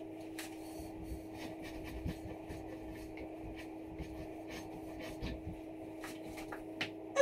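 Cloth towel rubbing and gripping a glass ceiling-light shade and its hot bulb, with faint scrapes and small taps over a steady low hum. A short squeak that falls in pitch comes right at the end.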